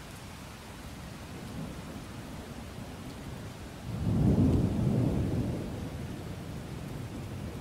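Steady rain with a rumble of thunder that breaks in about four seconds in, louder than the rain, and fades away over the next couple of seconds.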